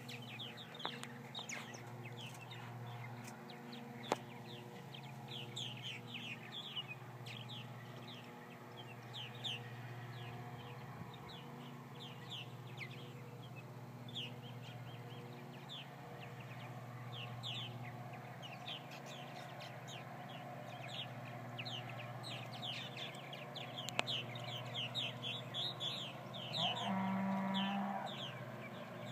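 A flock of purple martins calling overhead: a constant stream of short, quick chirps. A steady low hum runs underneath, and a louder, lower-pitched held sound lasts about a second near the end.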